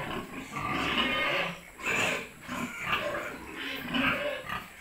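Pigs grunting and squealing in short, irregular bursts, about one a second.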